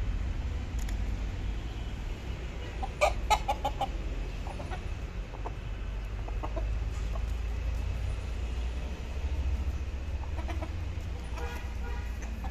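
Kadaknath roosters clucking. There is a quick run of short, sharp clucks about three seconds in, then scattered single clucks and a short run near the end, all over a steady low rumble.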